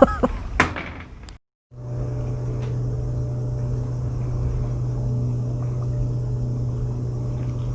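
A boat engine running at a steady, even drone as it moves a dock. It starts straight after a sudden cut to silence about a second and a half in.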